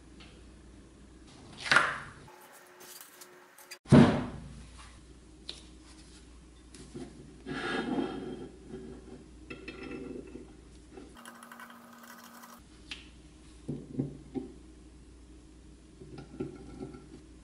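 Painted cast-iron bench grinder parts, bolts and hand tools (a hex key, a ratchet) clinking and knocking against each other and the workbench during reassembly. Two sharp metal knocks about two and four seconds in are the loudest, followed by scattered lighter clinks.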